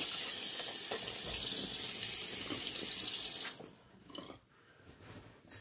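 Bathroom sink tap running steadily, shut off about three and a half seconds in; a few faint small sounds follow.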